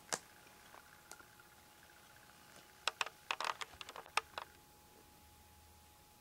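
Handling noise: one sharp click just after the start, then a quick cluster of clicks and taps about three to four and a half seconds in, over a faint steady hum.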